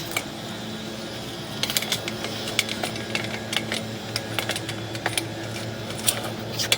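Sewer inspection camera's push cable being fed down the drain line, giving irregular clicks and taps from about a second and a half in over a steady low hum.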